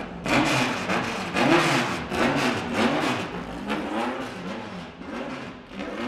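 Racing car engine revving in repeated throttle blips, its pitch rising and falling about once a second, fading toward the end.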